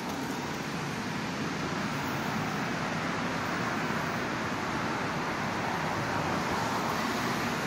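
Steady rush of road traffic on a beachfront boulevard, an even outdoor noise with no single event standing out.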